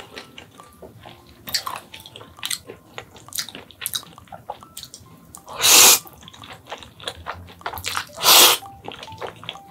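A person eating Rosé Buldak spicy instant noodles: wet chewing and small mouth clicks, with two loud noodle slurps, about five and a half seconds in and about eight seconds in.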